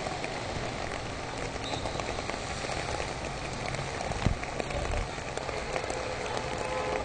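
Steady outdoor noise at a field hockey match, with faint scattered ticks and one sharp knock a little past the middle.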